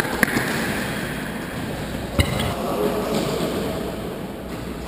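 A football being struck during an indoor five-a-side game: a sharp thud about a quarter second in and a louder one about two seconds in, echoing in a large sports hall.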